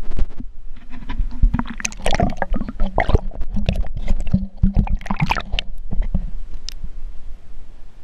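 Water splashing and gurgling as a camera is plunged into a swimming pool, a dense run of splashes in the middle that calms near the end as the sound turns muffled underwater.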